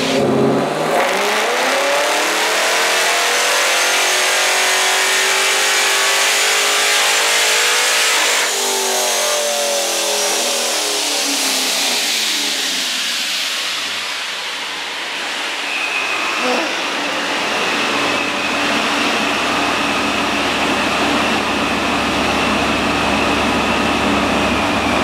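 Supercharged LSX 376-B15 V8 in a C6 Corvette making a full-throttle pull on a chassis dyno. The revs climb steadily for about eight seconds with a high whine rising alongside, then the throttle closes and the engine coasts down. From about two-thirds of the way in it runs at idle with a steady high whine.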